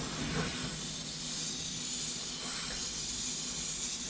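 A steady hiss, with a faint low hum underneath.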